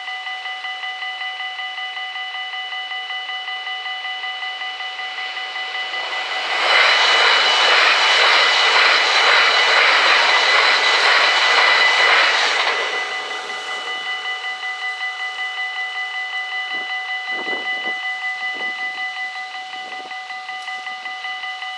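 Dutch level-crossing electronic bells ringing in a rapid steady pulse, about four strokes a second. An NS SLT sprinter train passes through the crossing from about a third of the way in to just past halfway, its rush of wheel and motor noise drowning the bells. After the train has gone, the bells keep ringing.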